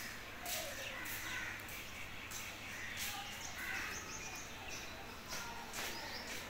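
A chicken pecking grain off a concrete floor, scattered sharp taps at irregular intervals, with short bird calls in the background.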